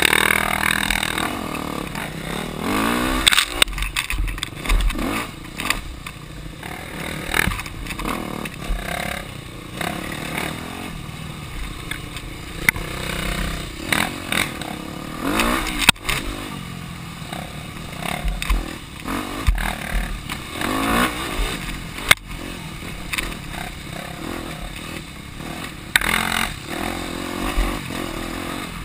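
Yamaha dirt bike's engine revving up and down as it is ridden along a rough trail, its pitch climbing and dropping every few seconds, with knocks and rattles from the bike over bumps.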